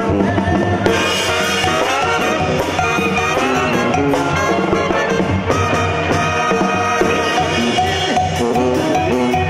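A live Mexican banda playing an instrumental passage: clarinets and brass over a tambora bass drum with a mounted cymbal and steel timbales struck with sticks, loud and steady.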